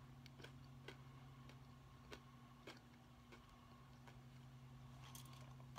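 Near silence: a faint steady hum of room tone with a few soft, scattered clicks.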